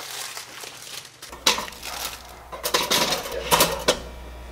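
Foil pastry wrapper crinkling and tearing open, then several sharp clicks and clacks in quick clusters.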